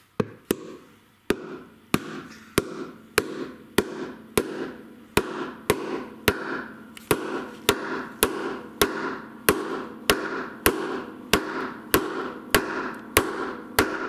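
Hammer blows driving a new ball bearing into a washing machine tub's bearing seat, struck through the old bearing used as a drift: a long, steady run of sharp metal strikes, about two a second, each ringing briefly.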